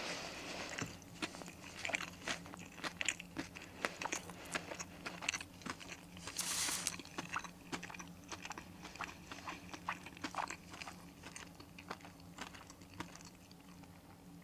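Close-up chewing of a crispy breaded fried chicken burger: a run of short crackling crunches, with a longer, louder crunch about six and a half seconds in. A faint steady low hum sits underneath.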